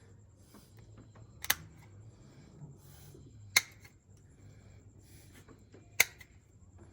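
Hoof-trimming shears snipping through a Nigerian Dwarf goat's hoof wall: three sharp snaps, about two seconds apart.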